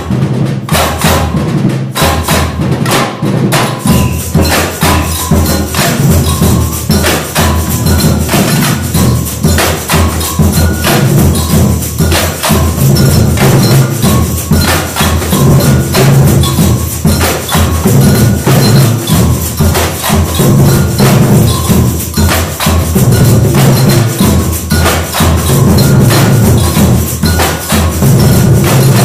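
Samba percussion ensemble playing together: surdo bass drums keep a steady low beat, with dense, sharp, clicking strokes from the smaller percussion on top.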